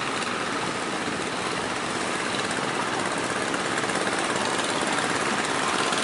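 Fishing-boat engines running steadily with a rapid, jackhammer-like chatter, mixed with the rush of breaking surf.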